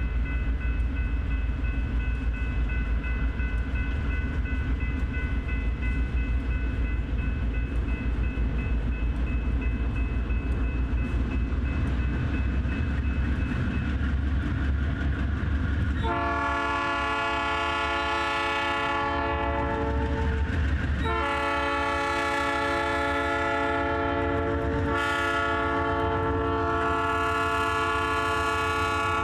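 Diesel freight locomotives, a GE B39-8E and an EMD GP38, rumbling as they approach, with a steady high tone above the engines for the first half. About sixteen seconds in, the locomotive horn starts and sounds long blasts with brief breaks between them: the horn signal for a road crossing.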